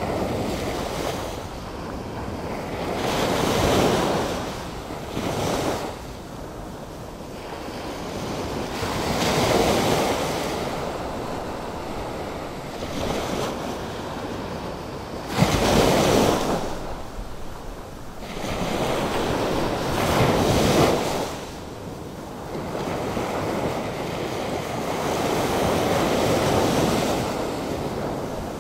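Atlantic Ocean surf: waves breaking and washing in, swelling and fading about every five or six seconds, with a sharper crash about fifteen seconds in.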